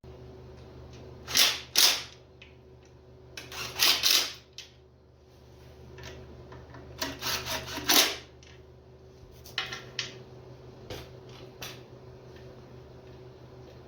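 Impact wrench running bellhousing bolts in on a big-block Chevy, in several short rattling bursts, two at a time, followed by a few brief blips near the end.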